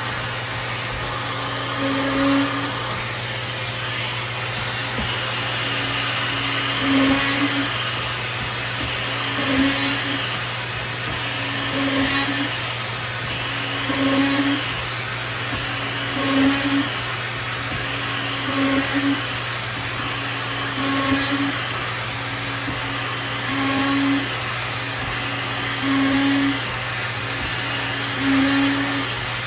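A dust extractor runs steadily while a Festool OF 1010 plunge router bores a row of holes through a jig. Each plunge makes a short, louder burst, about one every two and a half seconds.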